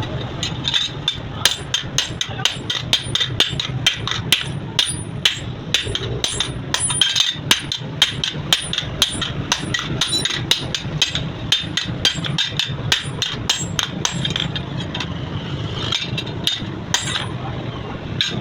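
Hammer blows on steel, forging a knife blade: a quick, uneven run of strikes, a few a second, each with a short metallic ring.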